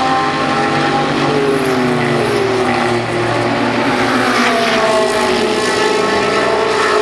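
Several GT race cars' engines running hard as a pack passes through a corner, their notes falling and rising in pitch, falling most clearly about one and a half seconds in and again about four and a half seconds in.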